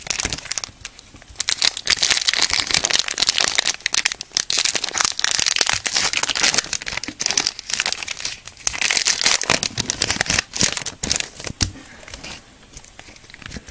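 Foil booster pack wrapper crinkling and tearing as it is opened by hand: dense crackling in two long stretches, with brief lulls about a second in and near the end.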